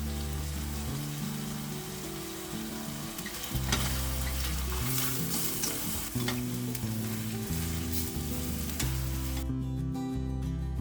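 Food sizzling as it fries in a pan while being stirred; the sizzle cuts off suddenly near the end.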